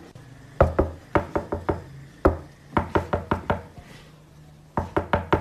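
Knuckles rapping on a car window from outside in quick runs of about five knocks, with single knocks in between.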